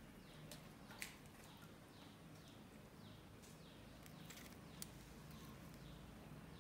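Near silence, with a faint high chirp that falls in pitch repeating about every half second, and a few faint sharp clicks, one about a second in and another near the end.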